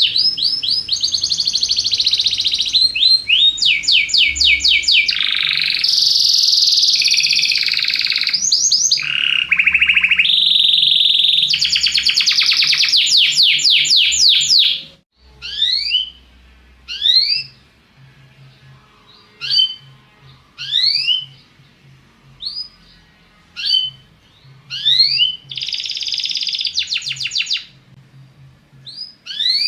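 Domestic canary (Belgian canary) singing: a long run of fast, high rolling trills that changes from one trill to the next, then stopping abruptly about halfway through and giving short, separate rising chirps every second or two, with one more brief trill near the end.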